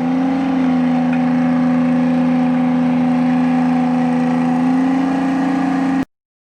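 An engine running steadily at an even pitch, cutting off abruptly about six seconds in.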